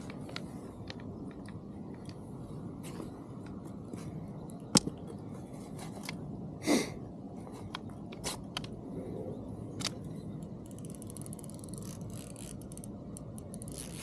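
Fishing tackle being handled while playing a pike: a baitcasting reel and a landing net give a few sharp clicks and knocks, the sharpest about five seconds in, over a steady low rumble. Late on comes a short stretch of fine rapid ticking from the reel.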